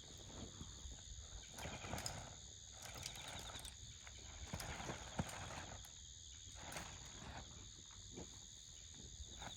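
Wood campfire crackling with scattered sharp pops, over a steady chorus of insects trilling.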